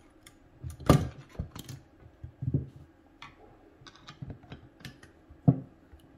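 A screwdriver working screws out of the top of a Rochester 4GC carburetor, with scattered metallic clicks and knocks of tool on metal and parts on the bench. Two sharper knocks stand out, about a second in and near the end.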